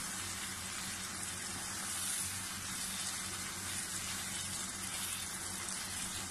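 Chicken and vegetables in a tomato-puree sauce sizzling steadily in a non-stick wok while being stirred with a spatula. A steady low hum runs underneath.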